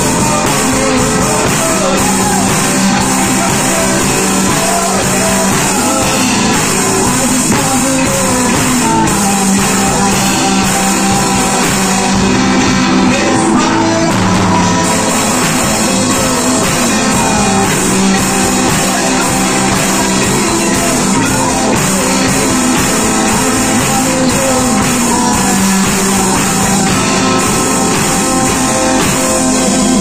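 A live rock band playing steadily and loudly in a small room: electric bass, electric guitar and drum kit.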